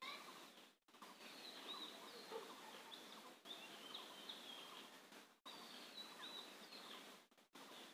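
Near silence: faint background hiss with faint, scattered bird chirps. The background cuts out briefly a few times.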